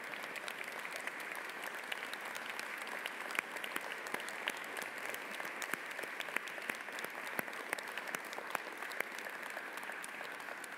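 Congregation applauding: a roomful of hands clapping steadily.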